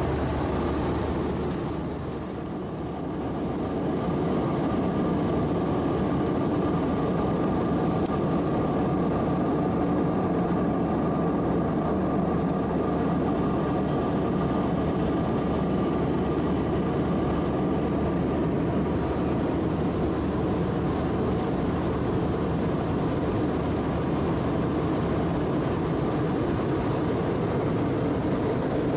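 Steady cabin noise of an Airbus A320 in cruise: the rush of air along the fuselage with the hum of its IAE V2500 engines, dipping briefly about two seconds in.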